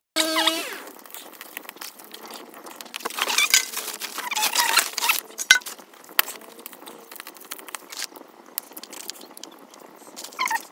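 Crackling and small snaps from a whole chicken being singed over an open wood fire, with rustling as the bird is turned and handled by hand.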